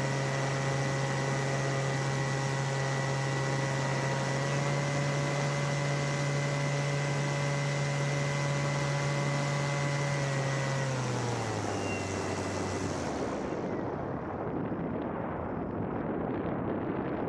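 Paramotor engine and propeller running at a steady pitch, then throttled back: the pitch drops over a couple of seconds and the engine sound fades out about thirteen seconds in, leaving wind rushing over the microphone.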